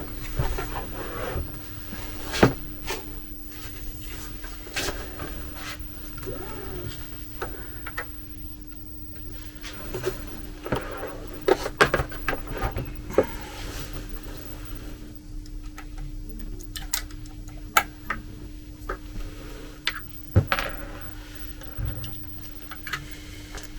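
Scattered clicks, taps and rubbing of hands and a tool on a 3D printer's Z-axis shipping bracket as it is unscrewed and taken off, with a steady low hum underneath.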